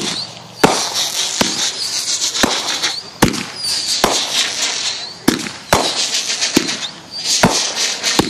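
Fireworks going off in quick succession: a string of sharp bangs, about two a second at uneven spacing, with a crackling fizz between them.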